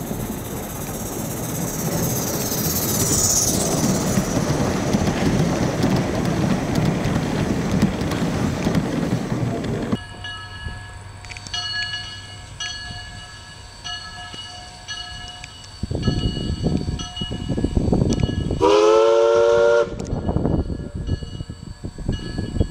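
Steam locomotive working: a steady rushing noise at first, then, after a cut, exhaust chuffs start up. Near the end a steam whistle blows once for about a second, several tones sounding together, and the chuffs go on.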